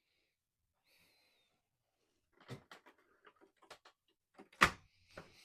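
The Alienware Aurora desktop's swing-out power supply being moved back into the case: a run of light plastic-and-metal clicks and knocks, then one sharp knock as it seats.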